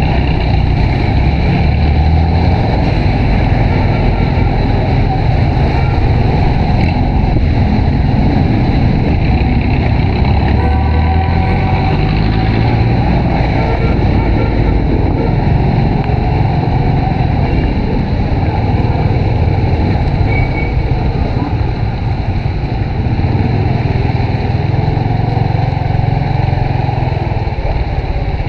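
Honda RSX 110 motorcycle's small single-cylinder engine running steadily under way, mixed with a loud, even rush of wind and road noise.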